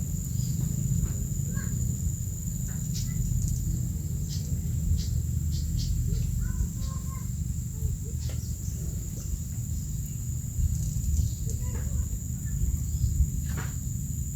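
Outdoor pond-side ambience: a low steady rumble with scattered short bird chirps and small clicks, over a thin steady high-pitched hum.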